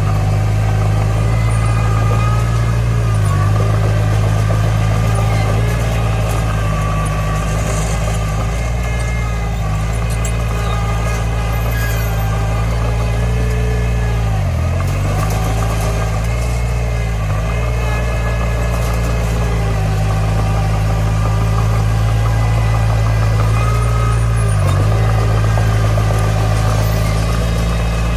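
Diesel engine of a small Komatsu D20 bulldozer running steadily under work, its pitch dipping briefly about four times, the deepest dip about halfway through.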